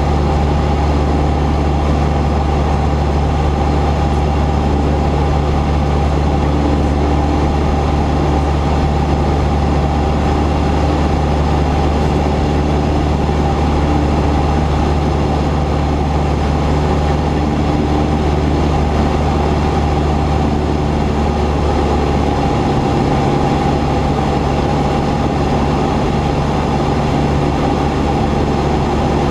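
Cessna 172's piston engine and propeller running steadily in a continuous drone, with a slight change in its low tone about three-quarters of the way through.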